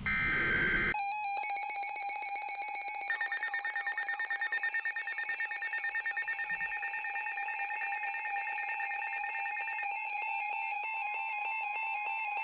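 Weather alert radio sounding a severe thunderstorm warning. For about a second it gives a short burst of screechy SAME data tones. Then its electronic alert alarm runs: a high, steady tone pulsing rapidly, with a fainter second tone joining near the end.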